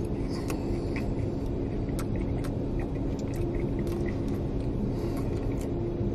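Steady low rumble and hum of a car running, heard inside its cabin, with a few faint clicks of someone chewing French fries.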